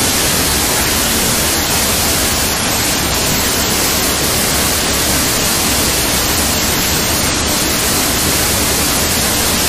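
Sound effect of a waterfall: a steady, loud rush of falling water that cuts off suddenly at the end.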